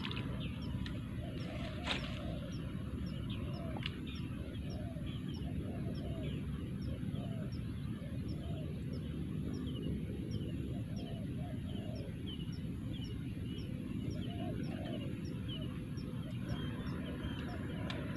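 Outdoor animal chorus: a short high chirp repeated evenly, nearly twice a second, over lower calls that rise and fall about once a second, against a steady low background rumble. A brief sharp click comes about two seconds in.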